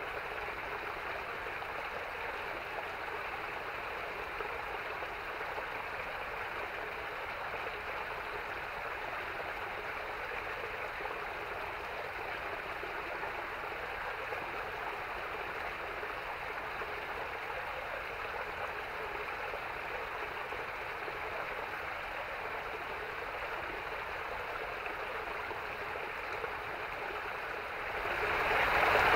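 Small forest stream cascading over rocks: a steady rush of running water, growing louder about a second before the end.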